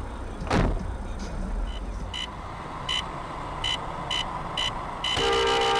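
A sharp thump about half a second in, then a run of short high electronic beeps, spaced unevenly at first and coming quicker near the end. Near the end a car horn sounds steadily over the beeps and the low engine and road rumble.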